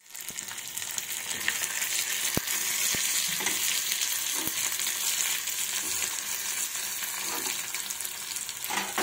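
Curry leaves, garlic, spring onions and spices frying in hot oil in a small pan for a tempering: a steady sizzle with a few sharp clicks. A metal spatula stirs and scrapes near the end.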